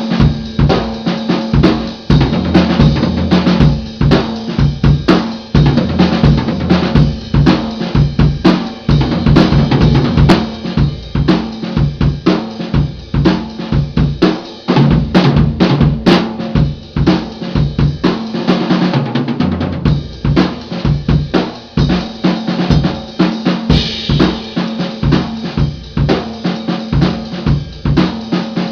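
Acoustic drum kit played solo: bass drum, snare and cymbals in busy, fast patterns of many strokes a second, without a break.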